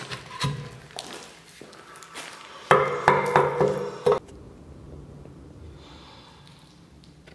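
Hand-turned spiral auger bit working in a bored hole in a wooden log: scattered scraping and clicks of the bit in the wood, then about three seconds in a loud, pulsing creak for about a second and a half, after which it goes quiet.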